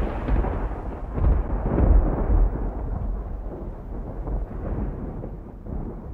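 Deep rolling thunder rumble, swelling again about two seconds in and then slowly dying away.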